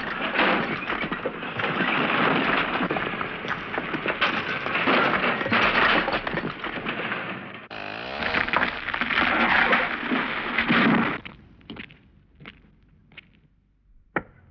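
Battle sound: a dense crackle of gunfire and bangs that cuts off after about eleven seconds, followed by a few isolated sharp cracks spaced about a second apart.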